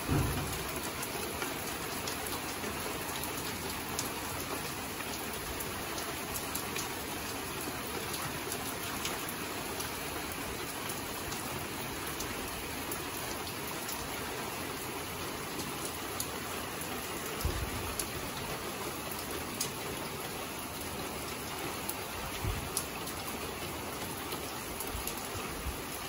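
Heavy rain pouring down steadily: a continuous even hiss with scattered ticks of individual drops landing close by. A few brief low thumps break through in the second half.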